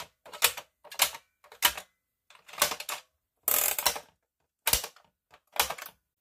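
Plastic pop-up toy being worked by hand: about eight sharp plastic clicks and clacks as buttons are pressed and the spring-loaded animal lids snap up and shut. About three and a half seconds in there is a longer rattling clatter.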